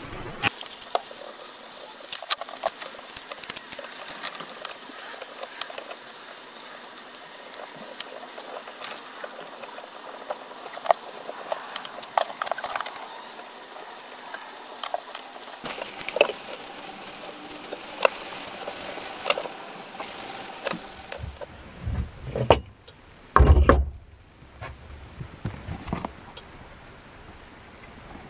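Hand work on a wooden workbench: a plastic bottle being handled and a screw bar clamp being tightened, with many scattered light clicks and taps. A few heavier thumps come near the end.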